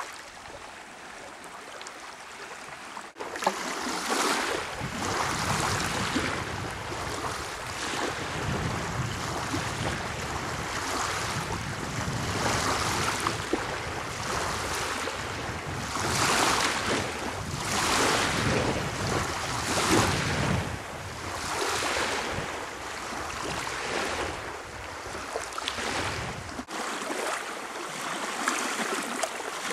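Small waves washing on a sandy shore, with wind rumbling on the microphone. About three seconds in, the sound cuts to louder washes that swell every couple of seconds, and it changes again a few seconds before the end.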